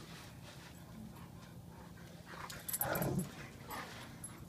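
Two Saint Bernards play-wrestling on dirt: quiet scuffling, with one short dog vocalization about three seconds in.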